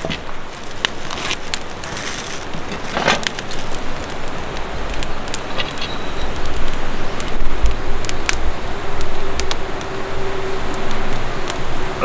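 Outdoor camp ambience: a steady rushing background with many sharp crackles and clicks scattered through it, and low rumbling bumps on the microphone around the middle.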